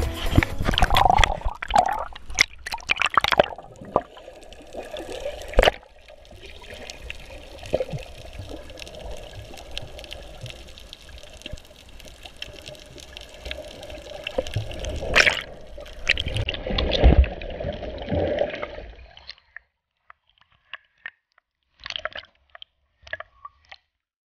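Water sloshing and splashing around an action camera as it moves at and under the sea surface, muffled by the waterproof housing, with several sharp knocks. About nineteen seconds in the sound drops away almost entirely, leaving a few faint clicks.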